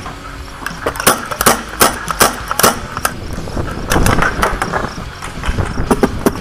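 Paintball gunfire during a game: an irregular series of sharp pops, about a dozen in a few seconds, with a louder, duller bump about four seconds in.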